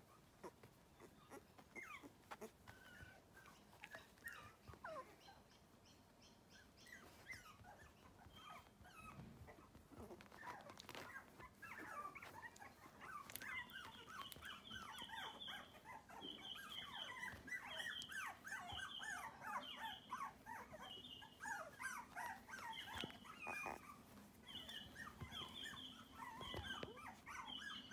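Four-week-old toy Cavoodle puppies whimpering and squeaking in short, high-pitched cries. The cries get busier about halfway through, and a run of short high chirps repeats about once a second.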